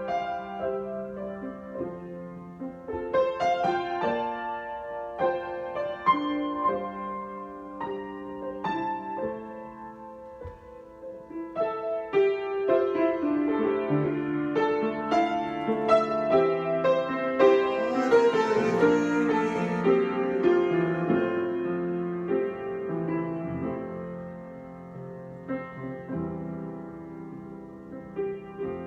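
Solo piano improvisation with clearly separate notes and chords. The playing grows fuller and louder about halfway through, then thins out and softens near the end.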